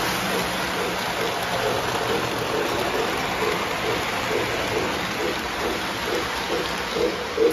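O-scale model steam train running on three-rail track: a steady rolling hiss and rumble of the wheels, with faint rhythmic chuffing from the locomotive, about two chuffs a second.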